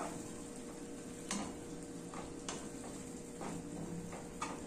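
Chile sauce sizzling in a frying pan while a slotted spatula stirs it, with a few light scrapes and taps of the spatula against the pan.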